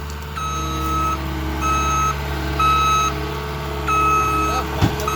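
Vehicle backup alarm beeping: about five steady beeps, roughly one a second, as a machine reverses, over the steady low hum of its engine running.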